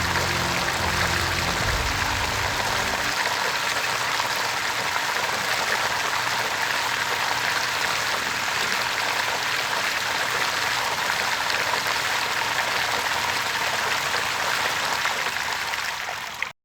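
Steady rushing, splashing water, as when a rug is flooded with cleaning solution, cutting off abruptly near the end.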